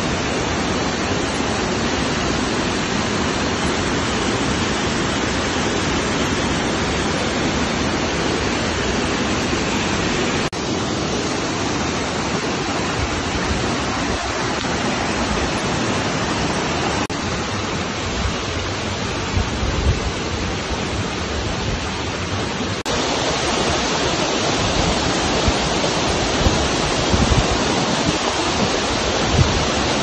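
Curug Lawe, a tall waterfall, falling onto rocks: a loud, steady, dense rush of water. Low bumps on the microphone come through in the second half.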